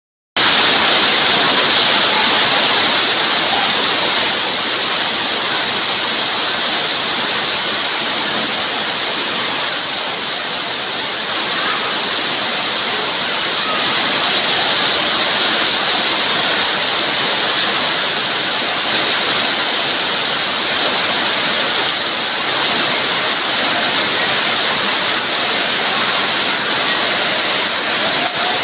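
Heavy rain falling steadily, a dense even hiss of drops on wet ground and standing puddles.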